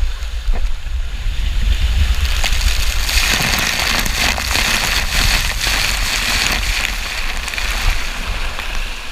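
Wind buffeting the microphone and water rushing during a ride down a body waterslide. The hiss of water grows loud from about three seconds in and eases off near the end.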